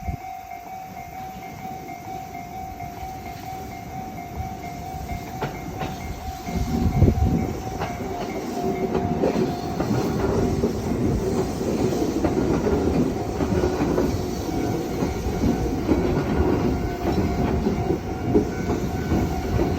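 Level-crossing warning bell ringing in a steady repeating pattern while a Tokyu 2020 series electric train passes. The train grows louder about six and a half seconds in, with wheels clacking over the rail joints.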